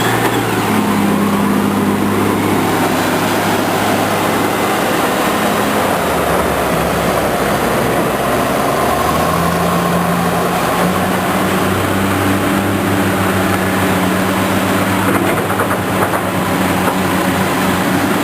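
Diesel engines of heavy construction machinery running continuously, their engine note shifting up and down a few times as the machines work.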